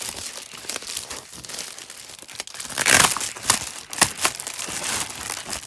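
Plastic bubble mailer crinkling and rustling as it is handled, with a louder burst of rustling and a few sharp crackles about three to four seconds in.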